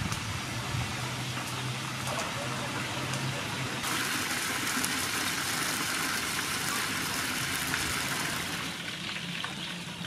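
Sauce sizzling in a frying pan as it is stirred with a wooden spatula: a steady frying hiss. About four seconds in, the hiss turns brighter and louder, then eases shortly before the end.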